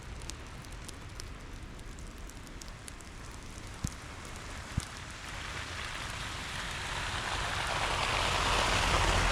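Jeep Wrangler JK driving a slushy trail in rain: a steady hiss of rain and tyres in slush over a low engine rumble. The hiss grows louder through the second half, and two sharp knocks come near the middle.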